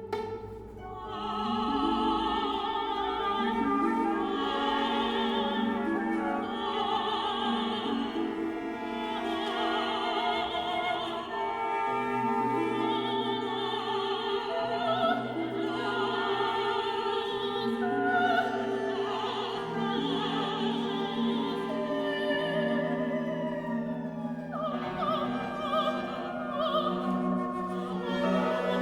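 Background music: an operatic singing voice with vibrato over an orchestral accompaniment.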